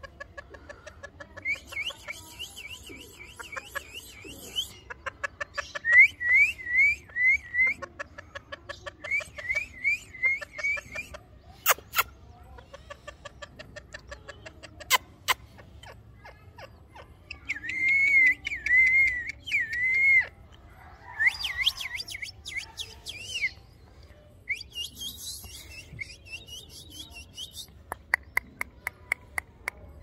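Pet rose-ringed parakeet chattering in bursts of quick, wavering, whistle-like chirps. Runs of rapid clicking come near the start and end, and two sharp clicks fall in the middle.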